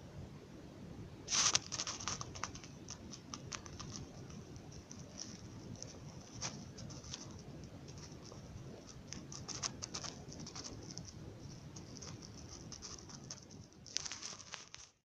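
Fingertips tapping and scratching on a wooden tabletop, heard through a stethoscope wired to a smartphone's external microphone: an irregular run of light taps and scrapes, with louder bursts of scratching about a second and a half in and again near the end.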